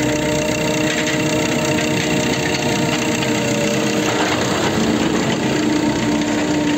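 Opel Z13DT 1.3 four-cylinder common-rail turbodiesel idling steadily with the bonnet open, with the usual even diesel clatter.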